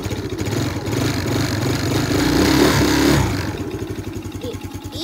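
Can-Am DS youth ATV's single-cylinder engine idling, then revved on the thumb throttle for a few seconds and let back down toward idle.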